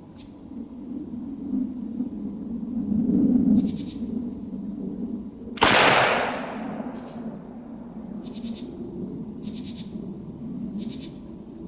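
A single shot from an antique Colt Single Action Army revolver firing a factory black powder .45 Long Colt cartridge, about halfway through, with a long trailing echo. Insects chirp in short repeated pulses.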